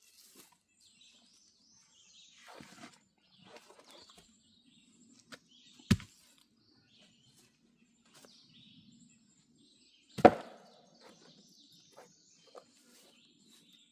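Two sharp knocks, one about six seconds in and a louder one about ten seconds in, with birds chirping faintly throughout.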